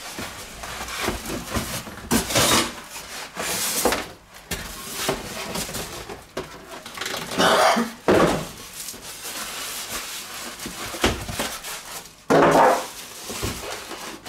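Cardboard box scraping and styrofoam packing blocks rubbing and squeaking as a boxed appliance is slid out, with plastic wrap rustling. Two loud, squeaky rubs come about halfway through and again near the end.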